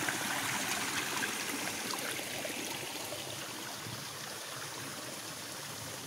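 Small woodland brook trickling and splashing down over tree roots on its way into the river, a steady rushing of water.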